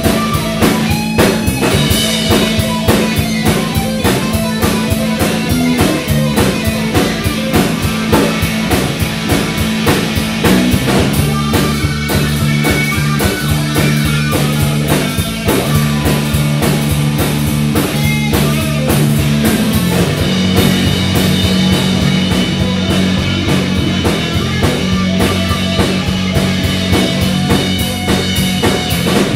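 Live rock band playing: electric guitar, bass guitar and drum kit, with a steady driving drum beat under held bass notes that change pitch a few times.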